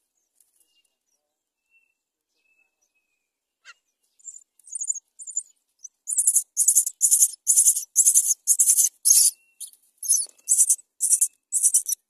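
Myna nestlings begging for food: a rapid run of harsh, hissing rasps, about three a second, starting softly about four seconds in and loud from halfway through, as the parent feeds them.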